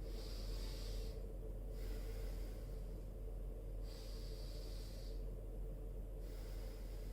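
A man taking slow, deep breaths in and out, as a warm-up breathing exercise before a yoga pose. Several long, hissy breaths are separated by short pauses, over a steady low hum.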